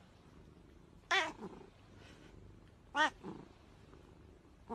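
Domestic cat giving two short meows about two seconds apart, each rising then falling in pitch.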